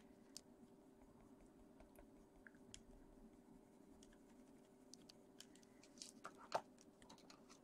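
Very faint scratching and ticking of a coloured pencil on paper over a low steady hum. About six seconds in there is a short cluster of sharper handling clicks and rustles of paper, one click louder than the rest.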